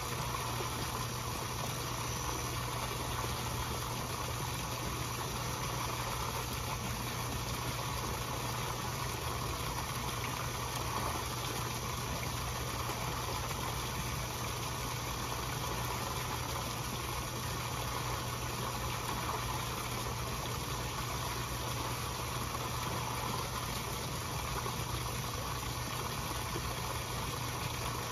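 Koi pond water: a steady rush of churning water with a constant low hum underneath.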